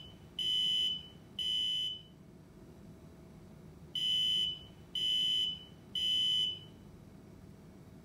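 Arduino RC car's piezo buzzer horn giving high beeps in groups of three, about a second apart, with a pause of about two seconds between groups. This is the three-beep signal the car is set to give when the gamepad control starts up.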